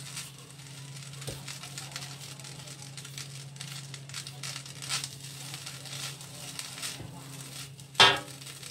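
A wok spatula scraping and turning fried rice in a wok, with light sizzling. About 8 seconds in, the spatula strikes the wok once with a loud, short metallic clang. A steady low hum runs underneath.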